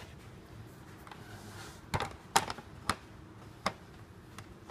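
A Bosch track saw being handled and set onto its aluminium guide rail, with the motor off: four sharp clicks and knocks in the second half.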